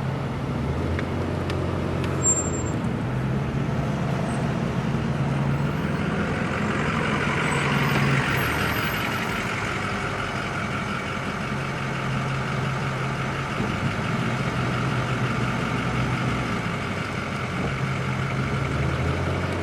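Car engine hum and road noise heard from inside a moving car, swelling for a few seconds around the middle and then easing back.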